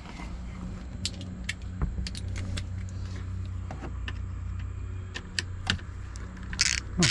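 Small metal hand tools clinking: a socket and adapter handled and fitted to a ratchet, scattered light clicks over a steady low hum. Near the end come a few louder rasping strokes.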